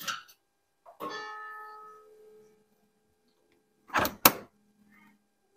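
A ringing tone that fades away over about a second, then two sharp knocks in quick succession, about a third of a second apart.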